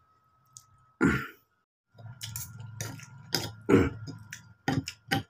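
One loud cough about a second in from a man eating very spicy noodles. From about two seconds, a quick run of clicks and scrapes as a metal fork and spoon work through noodles in a stone mortar bowl, with mouth noises of eating.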